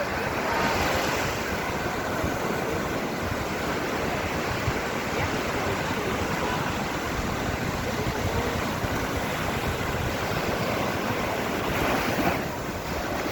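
Sea surf washing on a beach in a steady wash, swelling about a second in and again near the end, with some wind on the microphone.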